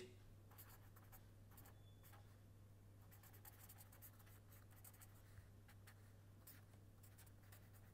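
Faint scratching of a felt-tip marker writing on paper, in several short runs of quick strokes, over a low steady hum.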